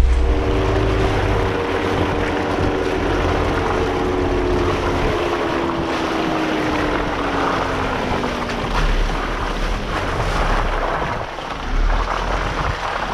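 Jeep Wrangler JL with a 2.0-litre turbo four driving slowly along a dirt trail, heard from a camera mounted outside on its body: wind rushing over the microphone, rough road and tyre noise, and an engine hum that slowly falls in pitch over the first eight seconds or so.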